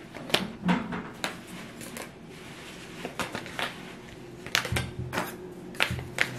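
Fabric curtain rustling and being handled, with irregular sharp taps and clicks as tissue rolls are fitted into the curtain at its grommet holes.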